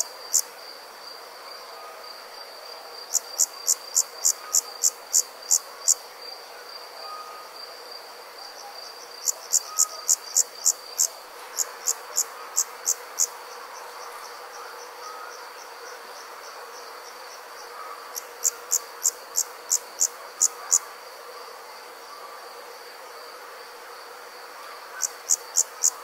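Summer night insect chorus: a steady high trill runs throughout, over which loud, sharp chirps come in bouts of about three a second. Each bout lasts two to three seconds, and they return every few seconds.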